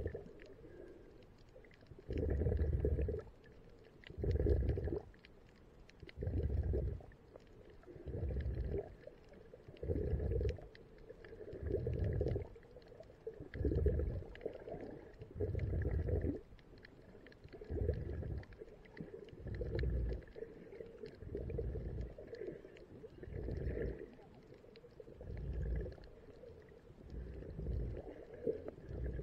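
A snorkeler breathing through a snorkel, heard muffled underwater: a regular low whoosh about every two seconds, over a faint steady high tone.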